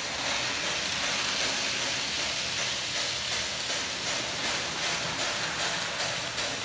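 N scale model trains, an Arnold BR 78 and a Fleischmann BR 91 steam locomotive pulling passenger coaches, running on the layout track: a steady whirring hiss of motors and wheels with a light regular clicking about twice a second.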